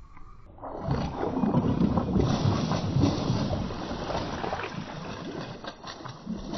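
Hooked mangrove jack thrashing and splashing at the water's surface beside the canoe as it is scooped into a landing net: loud irregular splashing that starts suddenly about a second in.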